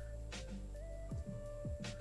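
Quiet background music with held tones and a soft beat of low falling thumps and light ticks.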